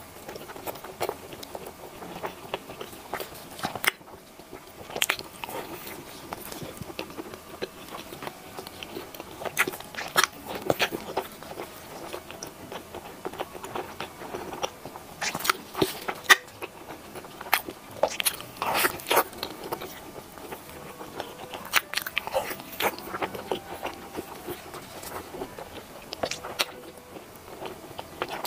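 Close-up eating sounds of a person biting into and chewing a soft purple-rice bun: irregular sharp crackles and mouth smacks.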